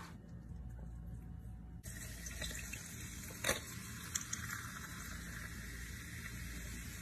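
A fizzy drink poured over ice cubes in a glass, the pour starting about two seconds in and running on. Two sharp ice clinks come about halfway through.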